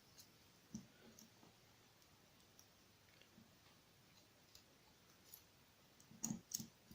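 Faint, sparse small metal clicks of lock pins and parts of a Yale rim cylinder being handled and fitted back in, with a few louder clicks near the end.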